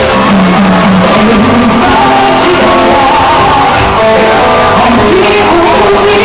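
Live pop music: a woman singing over a band with guitar, loud and steady, with a large-hall sound.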